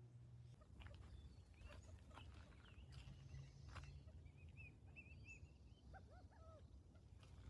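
Faint chirping of baby birds: a quick run of short high cheeps about halfway through, then a few lower squeaky calls a second later, with scattered faint clicks.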